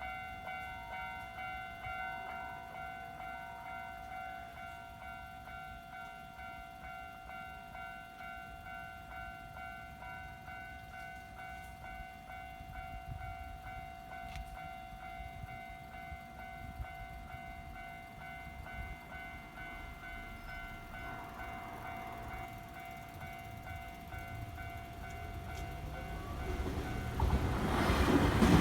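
Electronic warning bell of a Japanese railway level crossing ringing on and on. In the last couple of seconds a train reaches the crossing, and its rumble rises sharply and drowns out the bell.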